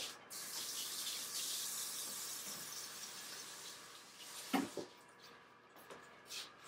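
Kitchen tap running as hands are washed under it, a steady hiss of water that starts just after the start and fades out about four seconds in. A couple of light knocks follow.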